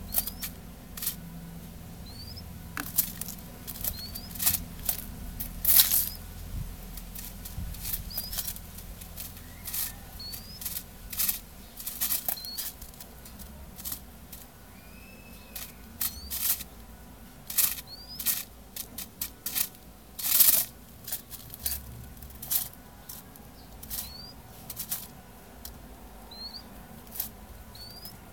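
A ground dove pecking at corn grits and bread on newspaper: irregular sharp taps of its beak on the paper, with a couple of louder knocks. Short, faint, high rising chirps come every few seconds.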